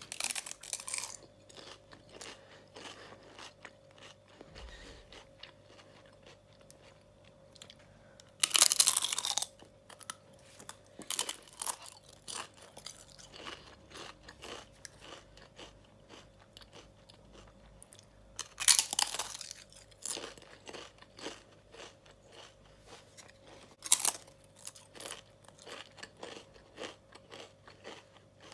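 Crisp fried papadums being bitten and chewed. Three loud crunching bites come about 9, 19 and 24 seconds in, with quieter crackling chews between them.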